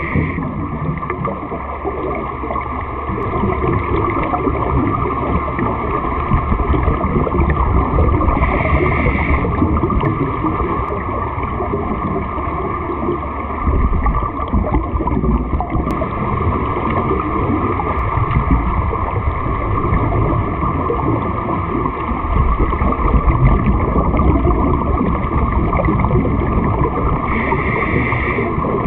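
Underwater sound of scuba breathing: a steady rush and rumble of water and regulator exhaust bubbles, with a few brief hisses of breath drawn through a regulator, about eight seconds in and twice near the end.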